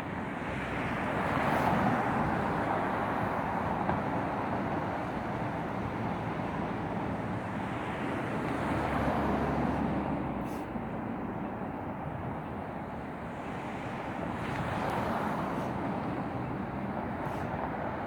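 Road traffic: vehicles passing one after another, their tyre and engine noise swelling and fading about three times over a steady roar.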